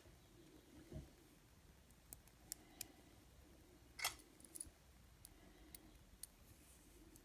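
Faint, scattered clicks of a small screwdriver and fingers on an N scale locomotive's metal frame as its screws are started, the loudest click about four seconds in.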